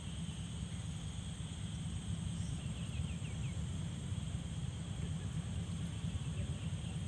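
Outdoor riverbank ambience: a steady low wind rumble on the microphone under continuous high insect trilling, with a quick run of about five short falling bird chirps about three seconds in.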